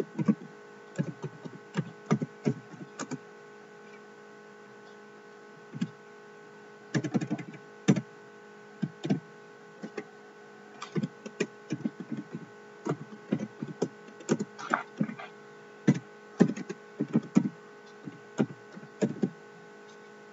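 Typing on a computer keyboard: irregular runs of keystrokes with a pause of a few seconds early on, over a steady hum.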